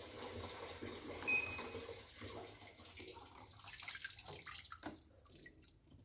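Faint water running and splashing in a Kelvinator top-load washing machine's drum, thinning after about two seconds to scattered drips and trickles. A short high beep sounds about a second in.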